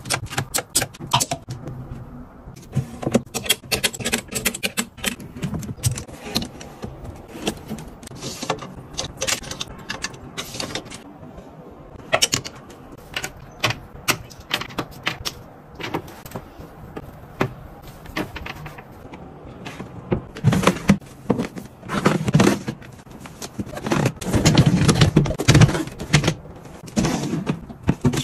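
Handling noises of wardrobe organizing: a run of clicks, clinks and rustles as clothes hangers knock on a metal closet rod and white plastic ring hangers are hooked together. Near the end comes a louder stretch of scraping and knocking as a perforated plastic storage basket is slid into a cabinet.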